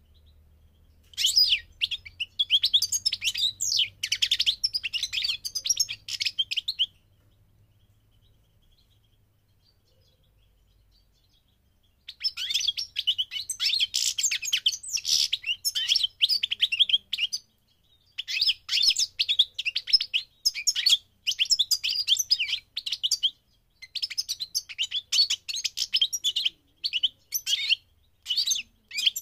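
European goldfinch of the parva race singing fast, high twittering phrases several seconds long. The first phrase ends about seven seconds in; after a pause of about five seconds, three more follow in quick succession.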